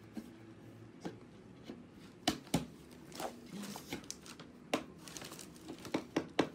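Flat-pack particleboard furniture being fitted together by hand: panels and legs knocking and tapping against each other in a string of irregular sharp knocks, a few louder near the middle and toward the end.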